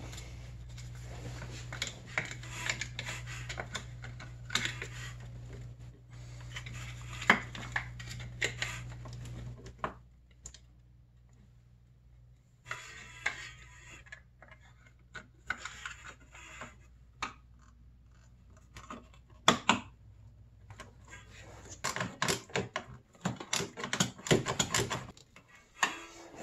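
Hand tools clicking and clinking on metal fittings in a snowmobile engine bay, in quick bunches near the end. A steady low hum runs under them and stops about ten seconds in.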